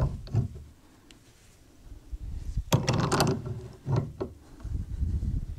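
Pipe wrench tightening a dark iron elbow onto a threaded pipe nipple held in a bench vise. Metal clunks and scraping come in several separate strokes as the wrench bites and turns the fitting, loudest about three seconds in.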